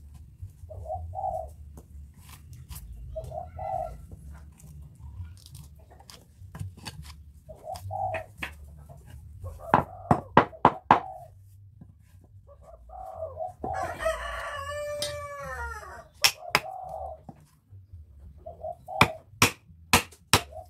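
Sharp knocks of a mallet striking a chisel into teak wood: four in quick succession about ten seconds in, one more a few seconds later, and several near the end. A rooster crows once in the middle, and doves coo repeatedly throughout.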